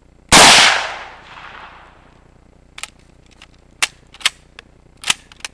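A single rifle shot from an 1891 Gewehr 88 bolt-action rifle in 8mm Mauser, its report echoing and trailing off over about two seconds. It is followed by a series of sharp metallic clicks as the bolt is worked to eject the case and chamber the next round.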